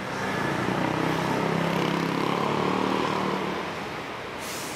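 A motor vehicle drives past on the street, its engine growing louder over the first second and fading away after about three seconds. A short hiss follows near the end.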